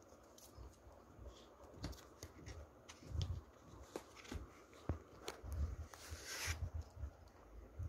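Handling noise of a Blu-ray case being turned over in the hands: scattered light clicks and taps, low thumps of the handheld camera being moved, and a brief scrape about six seconds in.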